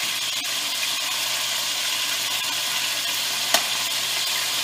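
Beef rolls sizzling steadily in hot oil in an enamelled pot as they brown. A single metallic click comes about three and a half seconds in as steel tongs touch the meat and pot.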